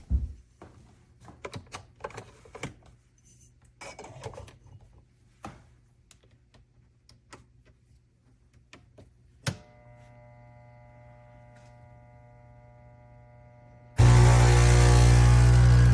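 Scattered light clicks and knocks, then a steady hum with several fixed tones after a sharper click. Loud music starts near the end.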